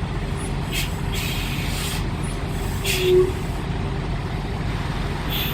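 Semi-truck diesel engine running low and steady while backing slowly, with several short hisses of released air from the air brakes.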